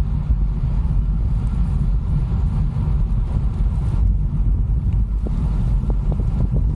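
Wind buffeting the microphone of a camera on a moving road bike: a steady low rumble.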